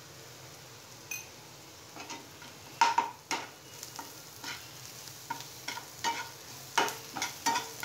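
Steel spatula scraping and knocking against a kadhai as frying onions are stirred, in irregular strokes that start about two seconds in and are loudest around three seconds and near the end. Under them a faint steady sizzle of the onions frying in oil.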